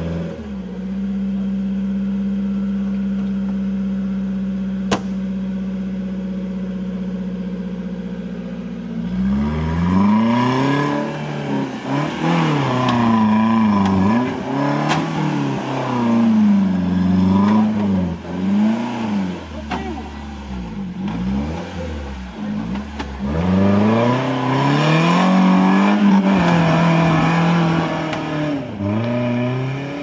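An off-road 4x4's engine idling steadily, then from about nine seconds in revved again and again, its pitch climbing and dropping with each blip of the throttle. A single sharp click sounds about five seconds in.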